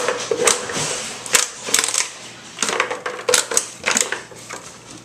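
Plastic water bottle crackling and crinkling in irregular bursts as a Labrador puppy bites and paws at it and shoves it along a hardwood floor.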